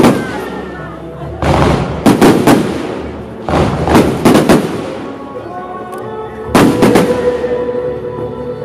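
Fireworks aerial shells bursting overhead in quick clusters of sharp bangs, with music playing underneath.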